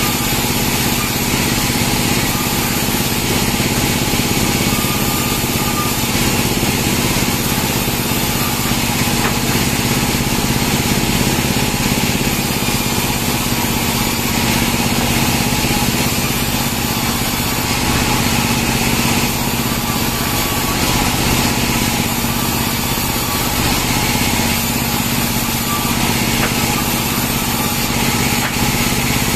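Band sawmill running steadily with a constant engine-like hum, its blade cutting pine (Pinus merkusii) logs and slabs into boards.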